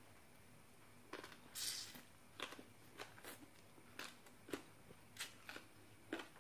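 Mouth sounds of a person eating by hand: a hissy slurp of rice noodles about a second and a half in, then a run of wet chewing and lip-smacking clicks about twice a second.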